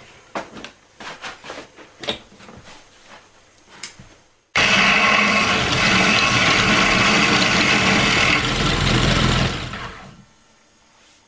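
A few light clicks and knocks, then a homemade motor-driven lathe spinning a wooden bowl while a chisel cuts into the wood. The machine noise starts abruptly about four and a half seconds in, runs steadily, and dies away shortly before the end.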